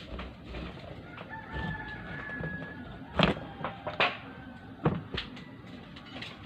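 A rooster crowing once in the background, a single long held call. It is followed by several sharp knocks about three to five seconds in.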